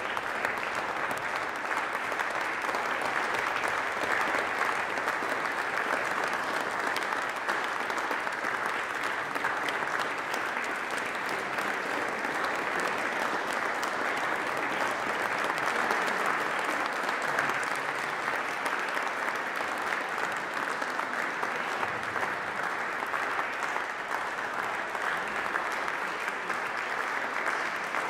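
Audience applause: dense, even clapping that holds steady at one level, with no single claps standing out.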